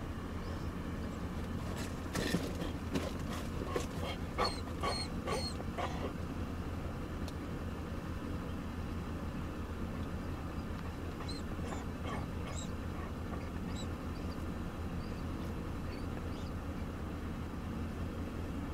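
Steady car road noise heard inside the cabin, with a dog giving a quick run of short whimpers about two seconds in and a few fainter ones later.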